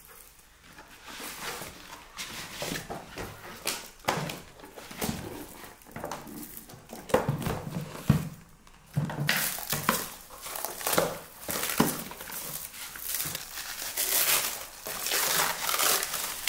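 Hard plastic food containers handled and set down on a wooden table, with irregular knocks and clicks, and plastic bags crinkling more densely in the second half.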